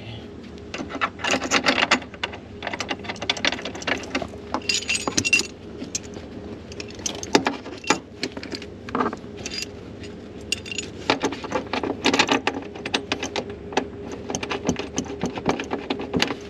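Irregular clinking and rattling of a six-point racing harness's metal end fittings and brackets as they are handled and worked around the seat mount, in several bunches of quick clicks.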